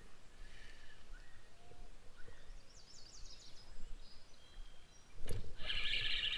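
Quiet creek-side background with a few faint bird chirps, then about five seconds in a click and a steady whir from a small spinning reel being cranked.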